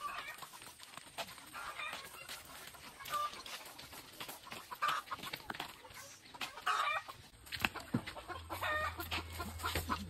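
Chickens clucking, short calls every couple of seconds.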